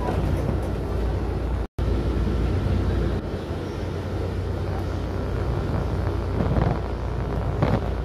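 Steady low rumble of a moving vehicle heard from inside the cabin: engine and road noise. The sound cuts out completely for an instant about two seconds in. Two brief louder sounds come near the end.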